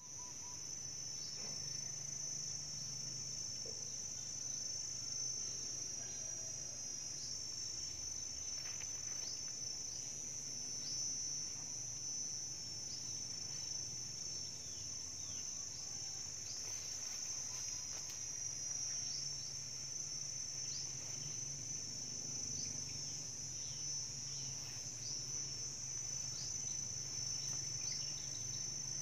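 A chorus of insects, crickets or cicadas, droning steadily at a high pitch, with short falling chirps over it every second or so.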